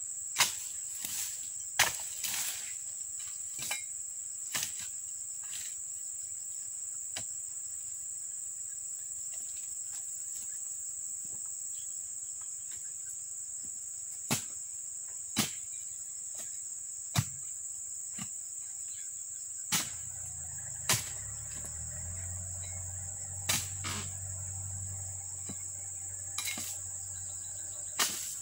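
Dodos chisel on a long pole chopping into oil palm frond bases: about ten sharp strikes at irregular intervals, with a long pause in the middle. Steady high insect chirring runs under it, and a low drone joins about two-thirds of the way through.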